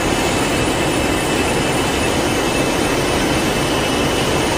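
A steady mechanical roar with a thin, high, steady whine, even in level throughout.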